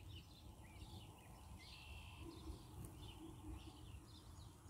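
Faint birds chirping and calling over and over, over a low rumble of outdoor background noise.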